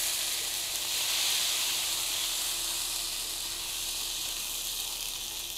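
Potato cubes frying in hot oil with turmeric: a steady sizzling hiss that slowly fades, with a faint steady hum beneath.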